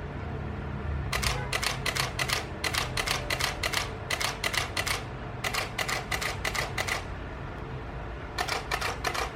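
Canon 6D DSLR's shutter and mirror firing in rapid continuous bursts of several frames, five bursts with short pauses between: the camera is shooting again after a mainboard repair of a no-power fault.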